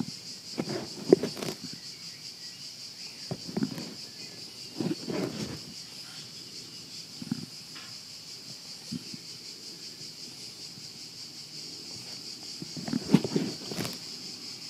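Steady chirping of insects, with short low sounds breaking in every few seconds, loudest about a second in and again near the end.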